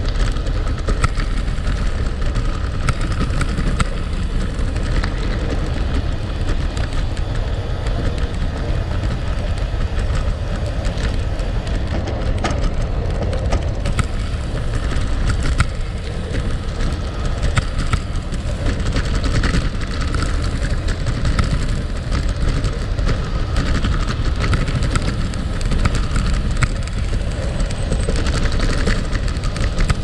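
Gravel bike rolling steadily over loose gravel: a constant crunch and patter of tyres on small stones with many small clicks and rattles, over a deep, steady rumble.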